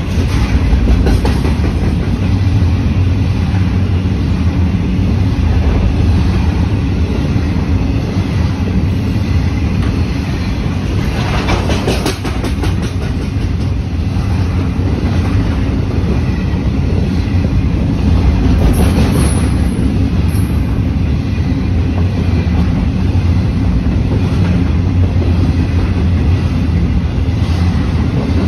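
Freight train wagons rolling past close by: a loud, steady low rumble with the clickety-clack of wheels over the rails. The clatter grows brighter for a moment about halfway through, as coal hopper wagons give way to container wagons.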